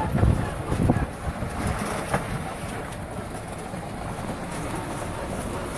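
Small taxi driving along a narrow path: a steady rumble of the ride with wind on the microphone, and a few knocks in the first two seconds.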